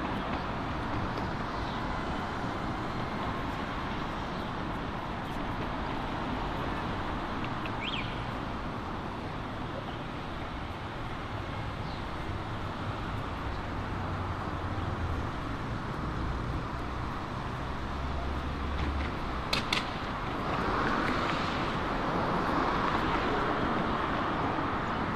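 Steady city street traffic noise from cars driving along a multi-lane road. A vehicle passes closer and louder over the last few seconds, with a couple of sharp clicks just before.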